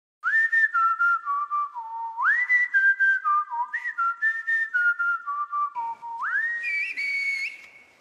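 Loud human whistling in the Turkish Black Sea whistled 'bird language' (kuş dili). Two phrases each leap up to a high note and then step down note by note, followed by a long rising whistle held high that wavers near the end.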